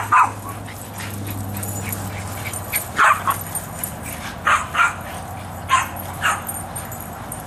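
Pit bulls barking in play: short barks, mostly in pairs, at the start and again about three, four and a half and six seconds in.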